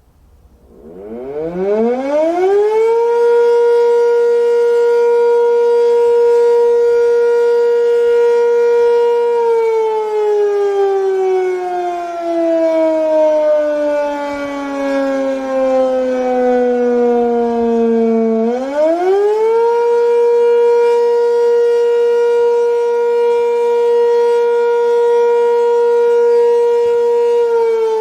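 Sentry 3V8H outdoor warning siren winding up from a standstill to a steady wail, holding it, then slowly winding down in pitch for several seconds before quickly winding back up to the same steady tone. Its monthly test.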